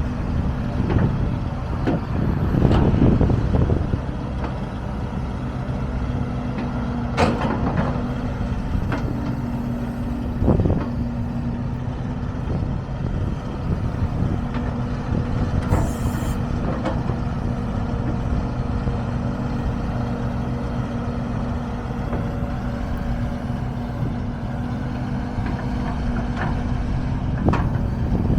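Link-Belt 145X3 excavator's Isuzu inline four-cylinder diesel running steadily, with a few clanks and knocks and a short hiss about halfway through.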